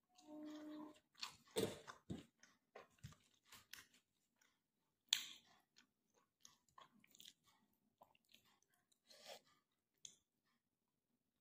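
Close chewing and mouth sounds of someone eating roti and cauliflower roast, a run of small wet clicks and smacks. A brief low voiced sound comes near the start, and a sharper click about five seconds in.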